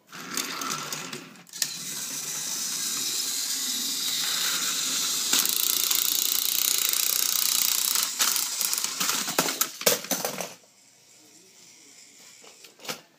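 Small electric motors of battery-powered Thomas & Friends toy engines whirring steadily as the engines push against each other on plastic track. Clicks and rattles come in near the end, and the whir stops about ten seconds in.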